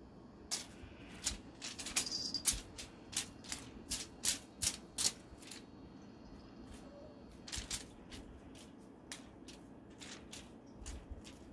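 Rapid, irregular sharp clicks and taps from a cat at play, in two flurries: a dense one over the first few seconds and a sparser one near the end.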